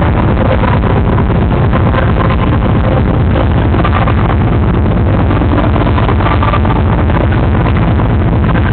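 Loud hip-hop dance music over a sound system with a heavy bass, distorted and overloading the recording.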